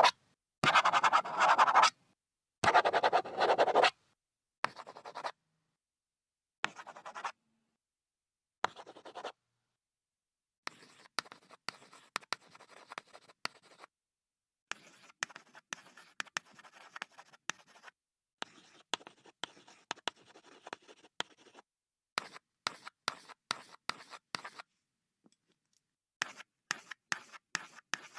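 Pen and pencil tips writing on paper, a series of separate takes with silence between them. First a few loud, dense scribbles about a second long, then short strokes, then longer stretches of writing made of quick separate ticks of the tip.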